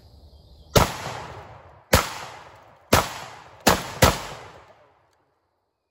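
Girsan MC312 12-gauge inertia-driven semi-automatic shotgun fired five times, the shots coming closer together toward the end (the last two less than half a second apart), each followed by a short echo dying away.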